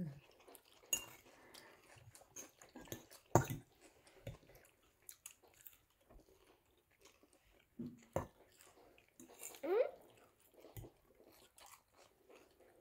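Eating at the table: chewing and crunching, with scattered clinks of cutlery against dishes. A couple of brief voice sounds come in about eight and ten seconds in.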